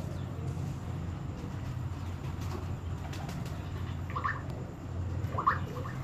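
Domestic pigeons cooing, with two short high chirps in the second half.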